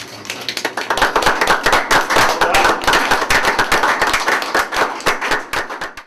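A crowd applauding, a dense patter of many hands clapping that swells about a second in and thins out near the end.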